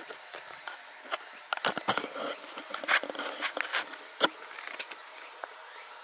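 Footsteps and rustling through dry grass and low plants: irregular crunches and clicks, busiest in the middle, over a faint steady high hiss.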